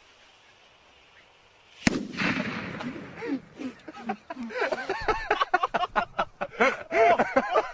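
A faint hiss from the smoking charge, then, about two seconds in, a single loud bang as a firework set in the ground goes off, followed by a rushing noise. From about halfway through, a voice cries out over and over in rapid, excited bursts.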